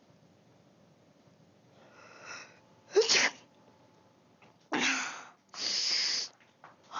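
A person sneezing: a drawn-in breath, then one sharp, loud sneeze about three seconds in, followed by two more breathy bursts.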